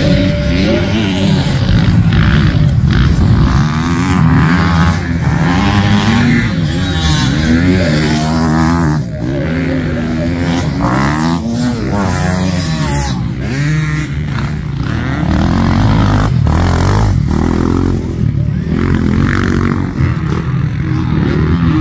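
Motocross dirt bike engines revving on the track, the pitch climbing and falling over and over as the riders accelerate and back off.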